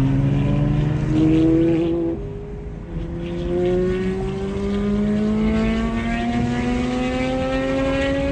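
A loud sports car engine accelerating hard, its pitch climbing, dropping at an upshift about two seconds in, then climbing steadily again through the next gear.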